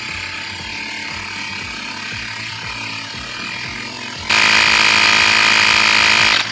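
Handheld electric tire inflator's compressor running as it pumps up a tire nearing its set pressure. About four seconds in it gets much louder and higher, then cuts off abruptly at the very end.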